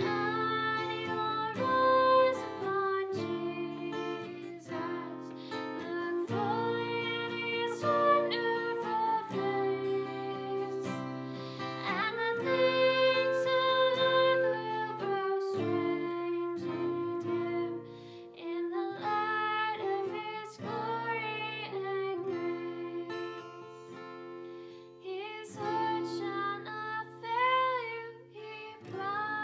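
Singing with acoustic guitar accompaniment: a sung melody over strummed chords.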